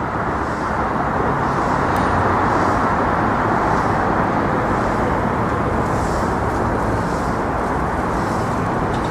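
Steady traffic noise from vehicles crossing the Manhattan Bridge, swelling a little in the first few seconds and then holding level.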